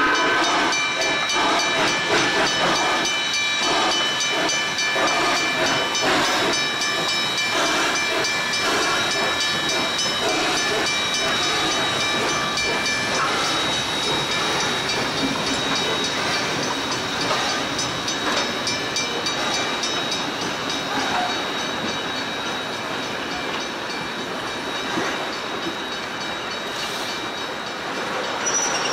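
Rx-class 4-6-0 steam locomotive passing with a hiss of steam, followed by its passenger carriages rolling by, wheels clicking over rail joints with a steady high squeal. Loudest at first, slowly fading as the train moves away.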